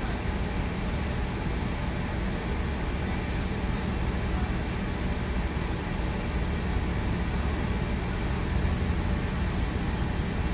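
Cabin noise inside a NovaBus LFS HEV hybrid transit bus: a steady low rumble from the drivetrain and road.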